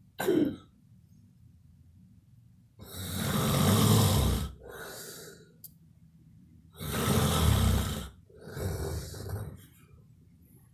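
A person snoring loudly: two long snores about four seconds apart, each followed by a shorter, quieter breath, after a brief sound at the very start.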